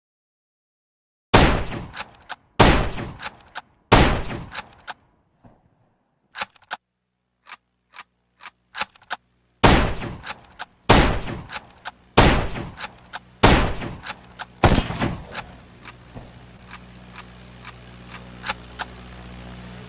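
Type 24 Zhongzheng bolt-action rifle (7.92 mm Mauser) firing: three shots about a second and a quarter apart, a run of lighter metallic clicks, then five more shots at the same pace. A faint steady low hum sits under the later shots.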